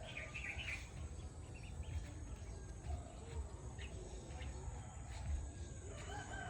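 Farmyard outdoor ambience: a steady high insect drone, with scattered short bird chirps and a constant low rumble.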